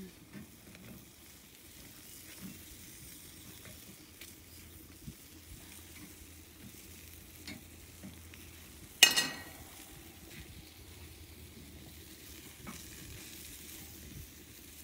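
Food sizzling faintly over an open wood fire, with small scattered crackles. About nine seconds in, a single sharp, ringing sound is the loudest thing.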